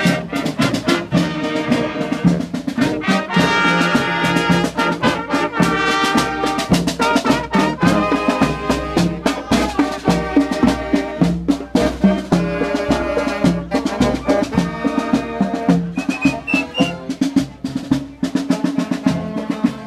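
Marching band playing a tune on the move: brass and saxophones carry the melody over a steady beat.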